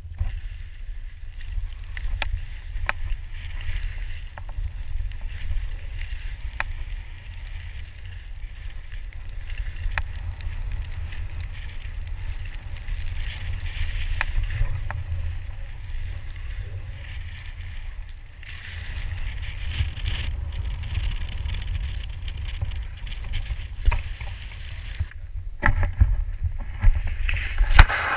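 Wind rumbling on a pole-mounted action camera's microphone while skiing, with a faint hiss of skis in snow and scattered clicks. The noise gets louder and busier near the end.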